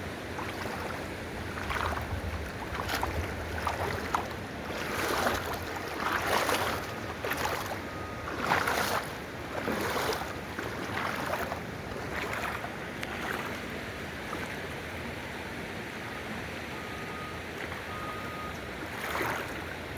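River water running with a steady rushing noise, broken by irregular short louder rustles and knocks.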